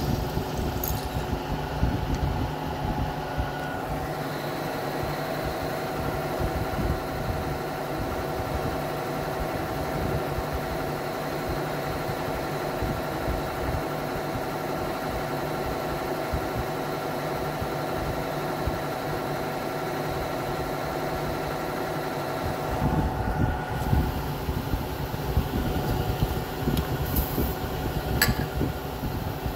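Vertical milling machine's spindle running steadily with an end mill cutting an aluminium ring. About three-quarters of the way through the cutting gets louder and more uneven, and there is a sharp click shortly before the end.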